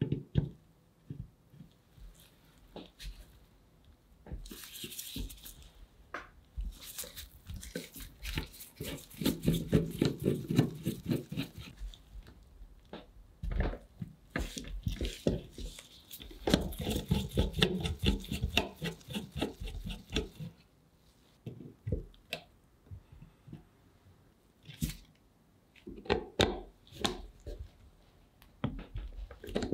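A screwdriver bit turning rusted slotted screws out of a cast-iron bread slicer frame: scraping and creaking as the screws give, with quick runs of clicks in two longer stretches and scattered single clicks between them.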